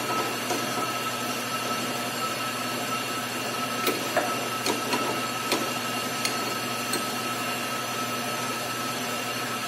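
Steady background hum with a constant high whine. Several light clicks come spaced under a second apart in the middle, as a steering tie rod end is screwed back onto the axial rod.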